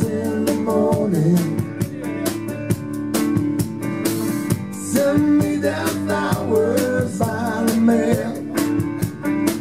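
Live country-rock band playing an instrumental passage: electric guitar over electric bass and a steady drum kit beat with cymbal hits.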